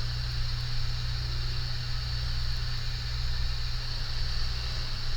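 Steady fan hiss over a low, constant electrical hum, unchanging throughout.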